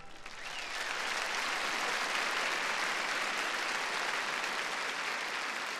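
Large arena audience applauding, the applause swelling up within the first second and then holding steady.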